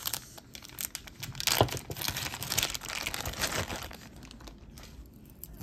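Wrapping material crinkling and tearing as a wrapped piece is unwrapped by hand: irregular crackles, busiest in the first few seconds and thinning out toward the end.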